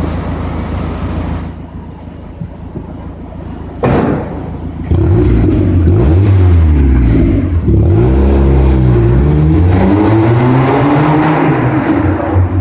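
Mazda MX-5's four-cylinder engine and exhaust: a sharp click about four seconds in, then the engine fires and is blipped up and down several times through the exhaust.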